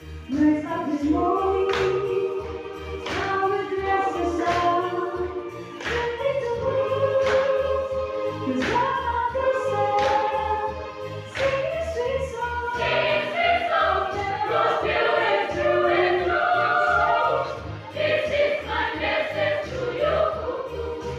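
Youth choir of mostly girls' voices singing a song together, with sharp hand claps on the beat roughly every second and a half.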